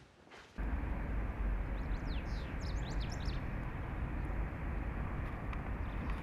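Outdoor ambience starts suddenly about half a second in: a steady low rumble of wind or distant traffic, with a cluster of quick bird chirps through the first half.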